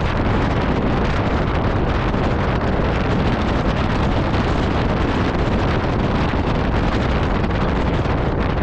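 Strong wind blowing across the microphone: a loud, steady rush of wind noise.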